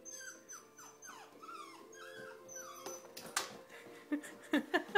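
A puppy whimpering in short, high whines, followed from about three seconds in by a dog's paws knocking and scrabbling on wooden stairs as it bounds up them, with several sharp knocks near the end as the loudest sounds.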